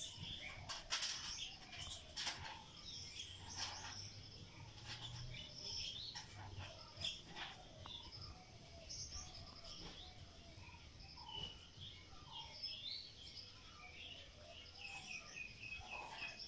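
Small birds chirping and calling, with a few sharp clicks scattered through; near the end one quick run of repeated short chirps.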